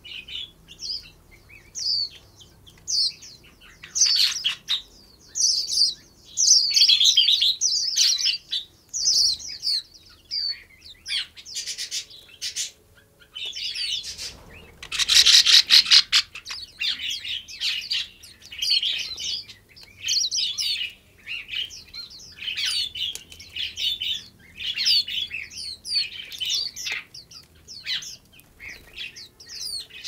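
Small songbirds chirping and twittering without pause, many short high notes overlapping, with a loud fast rattle of repeated notes around the middle.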